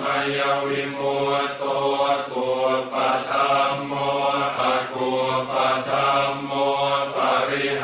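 Thai Buddhist monks chanting a funeral chant in Pali together, in a low, steady, near-monotone drone.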